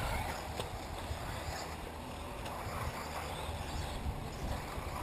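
Wind buffeting the microphone, a low uneven rumble, over faint outdoor background noise.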